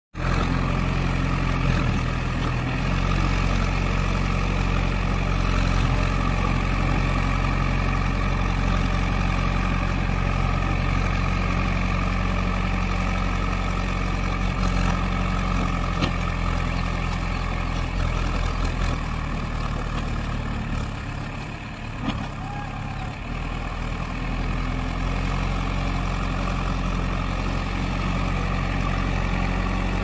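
JCB 3DX backhoe loader's diesel engine running steadily as the machine works. About three-quarters of the way through, the engine note drops for a couple of seconds, then steadies again.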